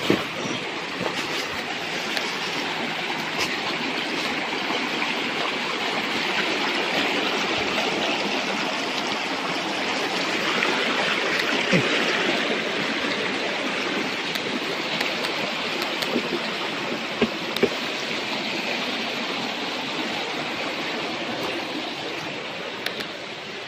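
Stream water rushing steadily, swelling a little around the middle, with a few light knocks.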